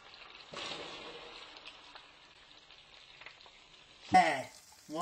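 Diced red onion tipped into melted butter in a frying pan, setting off a louder sizzle about half a second in that settles into a quieter, steady sizzle. A short burst of a person's voice comes near the end.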